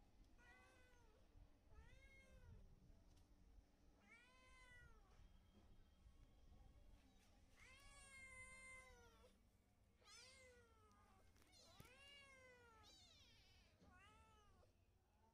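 Tabby cat meowing repeatedly: about eight drawn-out meows, each rising then falling in pitch, with a longer one about eight seconds in.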